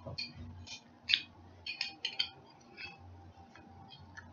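Faint, scattered short clicks and clinks, about ten spread irregularly, over a low steady hum.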